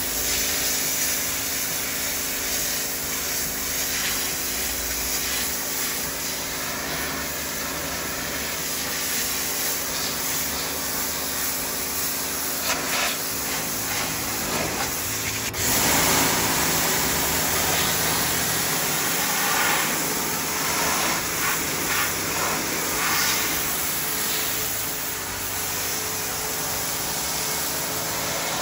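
Pressure washer running, its water jet hissing against a fish's skin and the board beneath to blast off scales and slime, over a steady machine hum. The spray gets suddenly louder about halfway through.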